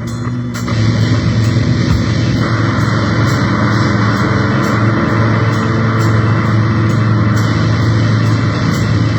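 Noise music: a dense, distorted wall of sound over a steady low drone, pulsed by regular clicks about two or three times a second.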